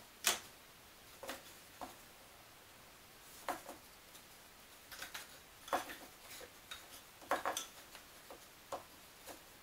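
Small laser-cut wooden model-kit pieces clicking and tapping against each other and the tabletop as they are picked up and set down: scattered light taps, with a few quick clusters of two or three.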